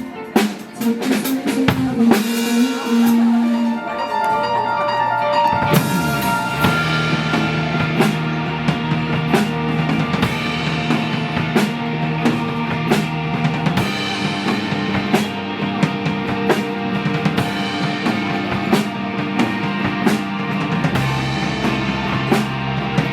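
Live band music with a drum kit keeping a steady beat under sustained bass and chords, with a brief drop in loudness about half a second in.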